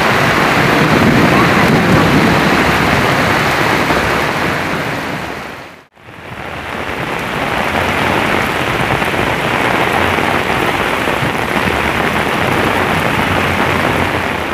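Heavy downpour: dense rain falling on open lake water and paving, a loud steady hiss. It cuts out for a moment about six seconds in, then comes straight back.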